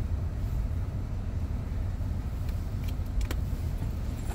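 Steady low rumble of a car heard from inside the cabin, with a few faint clicks around the middle.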